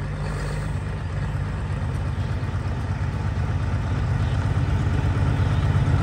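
Ford TW-10 pulling tractor's diesel engine running steadily while hitched to the sled, growing slowly louder.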